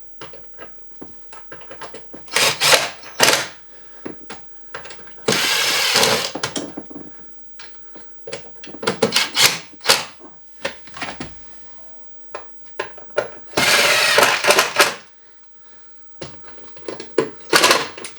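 Power drill running in short bursts, two of them held for about a second each, with knocks and clatter between.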